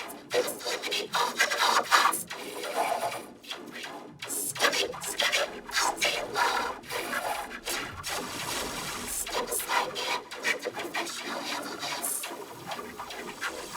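Cartoon dialogue and sound turned into white noise: bursts of hiss that rise and fall in the rhythm of speech, with no pitch of a voice left.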